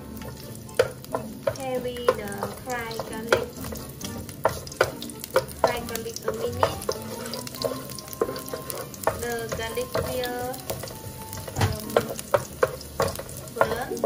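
Garlic cloves sizzling in hot oil in a nonstick frying pan, with a plastic slotted spatula stirring them: repeated sharp taps and scrapes of the spatula on the pan throughout.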